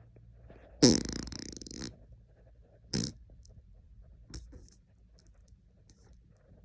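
A man farting: one loud, buzzing fart lasting about a second, starting about a second in, then a short second burst about two seconds later.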